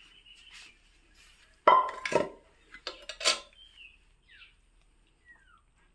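A plate clattering on the floor as several kittens eat from it: a sharp clatter with a brief ring about two seconds in, and a weaker one about a second later.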